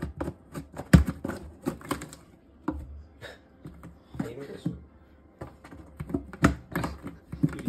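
Irregular tapping, knocking and scratching on a cardboard cat house, about a dozen uneven taps over several seconds.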